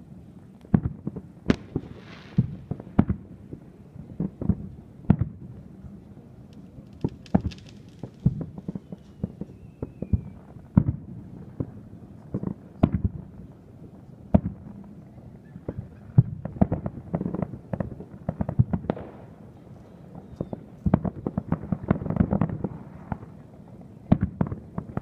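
Aerial fireworks shells bursting in an irregular series of bangs, sometimes several in quick succession, each followed by a low rumbling tail, with brief crackling now and then.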